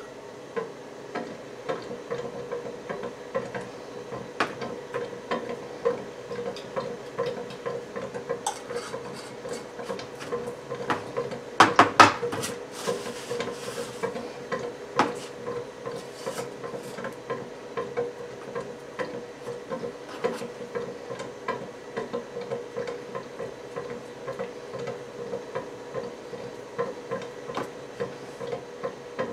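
Small clicks and knocks of PVC fittings, solvent-cement cans and their dauber lids being handled on a workbench during solvent welding, with a louder clatter about twelve seconds in and a brief rustle just after. A steady faint hum runs underneath.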